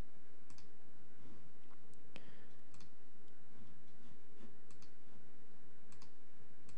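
Computer mouse clicking, about nine scattered clicks, over a steady low hum from the recording.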